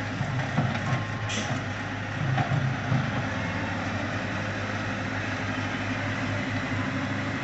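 Diesel engine of a compact wheel loader running with a steady low hum while the machine raises its bucket and reverses, swelling slightly about two seconds in.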